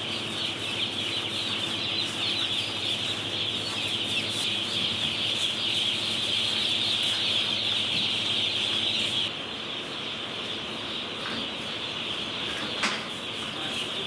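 A crowd of broiler chicks peeping without pause, a dense, high chirping chorus that drops a little in loudness after about nine seconds.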